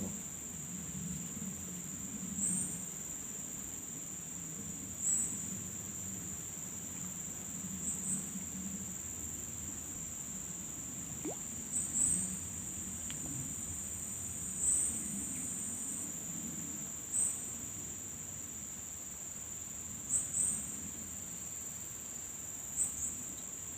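Insects in swamp vegetation keeping up a steady high-pitched drone, with a short louder chirp breaking in every two to three seconds.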